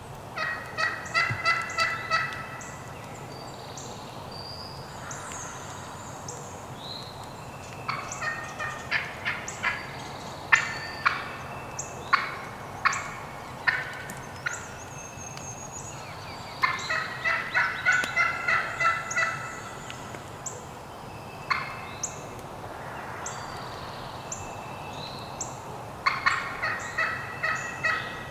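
Wild turkey gobbling: four bouts of rapid, rattling gobbles spaced several seconds apart, with a longer run of sharp notes in the middle. Songbirds chirp faintly between them.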